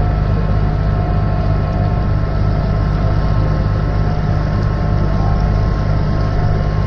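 Amphibian tour boat's engine running steadily at cruising speed, a constant low drone with a faint whine over it, heard from aboard.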